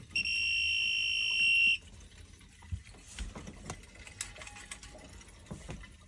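Two-pole voltage tester beeping with one steady high tone for about a second and a half as its probes sit on the live orange terminal of a wiring centre, showing 240 V on the zone valve's feedback wire to fire the boiler. Then faint clicks and handling noise.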